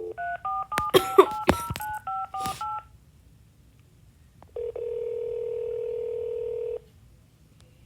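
Phone keypad dialling: a quick run of about ten two-tone touch-tone beeps, mixed with a few sharp, loud clicks. After a short pause comes one steady ringing tone of a bit over two seconds: the call is ringing through.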